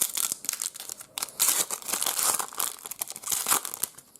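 Wrapper of a trading-card pack being crinkled and torn open by hand, an irregular crackling and rustling with louder crinkles in the middle.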